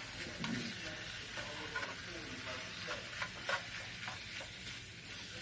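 Ground beef sizzling in a frying pan while a spatula stirs and scrapes through it, with a few sharper scrapes against the pan a little past halfway.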